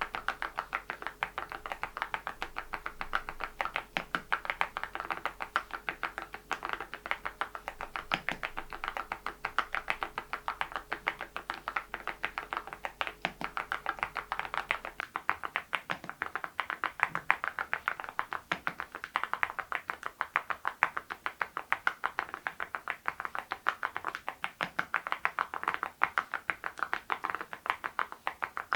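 Mechanical keyboard fitted with ceramic keycaps being typed on quickly and steadily, a continuous run of sharp, bright clacks several a second.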